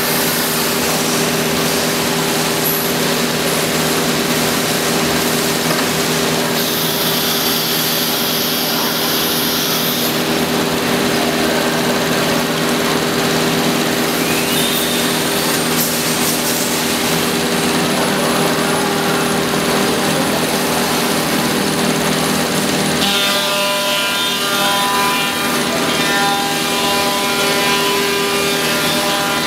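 CNC router spindle cutting into a wooden panel: steady loud machining noise with a held whine. A higher tone joins briefly about seven seconds in, and about 23 seconds in the pitch pattern changes as a new set of higher tones comes in.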